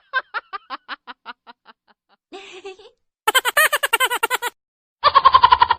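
Recorded laugh sound effects played one after another with short silent gaps between them. First a laugh trails off in fading ha-ha pulses, then a brief breathy snicker, then two quick rapid laughs of about eight to ten pulses a second.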